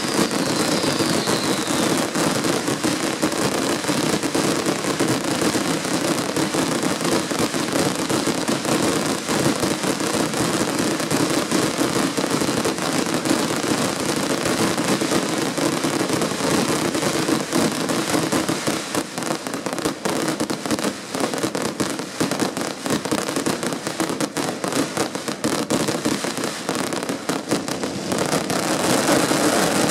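Fireworks display: a dense, continuous barrage of crackling and bangs running together with no gaps. It eases somewhat about two-thirds of the way through, then builds again near the end.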